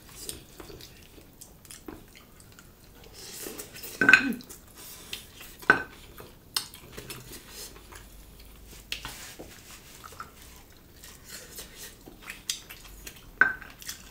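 Ceramic plates and cutlery clinking during a meal: soft taps and scrapes, with three sharper clinks that ring briefly about four, six and thirteen seconds in, the first the loudest.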